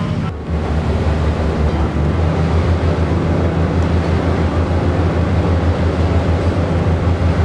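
Engines of a Type 2 Titan jet-drive rescue boat running, heard inside the closed cabin as a loud, steady low drone with a rushing noise above it. A brief break comes about half a second in.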